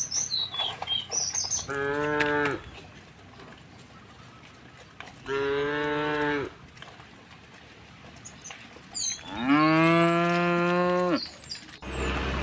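Cows mooing: three separate moos a few seconds apart, each a steady pitched lowing call. The last moo is the longest and loudest, about two seconds.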